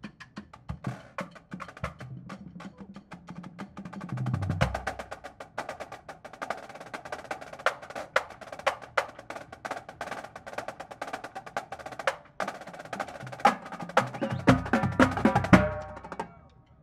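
Drum corps battery on Pearl marching drums (snare drums, tenor quads and tuned bass drums) playing a fast, dense percussion feature. Bass drum notes come in about four seconds in and again in a louder passage near the end, where the playing stops.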